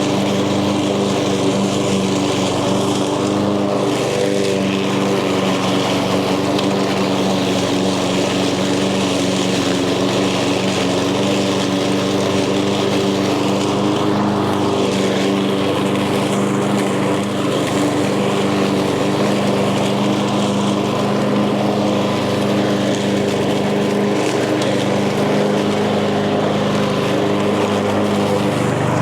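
Echo gas lawn mower's engine running steadily at a constant speed while mowing tall, thick grass and weeds.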